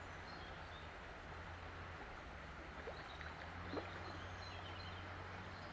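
River water running over a shallow riffle, a steady rushing hiss, with faint bird chirps. About three and four seconds in come two brief sharp sounds, the second the loudest; they fit a splash at the surface near the bank.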